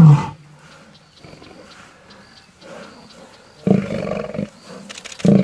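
Male lions snarling in a fight: a loud, falling call cuts off at the very start, then two short, loud snarls come, one near the four-second mark and one just before the end.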